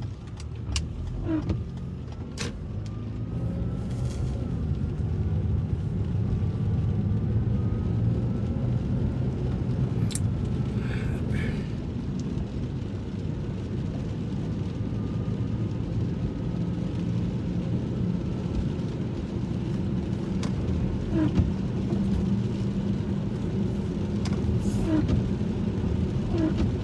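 Car driving, heard from inside the cabin: a steady low rumble of engine and tyres on a wet road, building over the first few seconds, with a few light clicks and taps.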